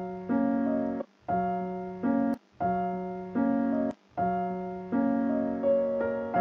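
Piano music: a short phrase of held chords that repeats, each phrase changing chord once and then stopping in a brief gap, with a longer phrase near the end.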